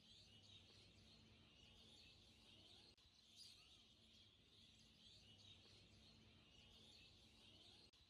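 Near silence with faint bird chirping and a low hum.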